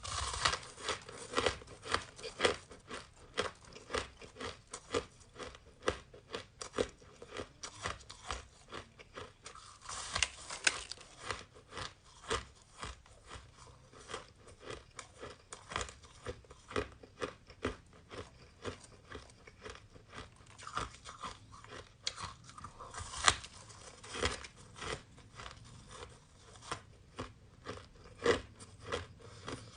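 Close-miked crunching and chewing of frozen shaved ice, a quick steady run of sharp crunches with a few louder bites.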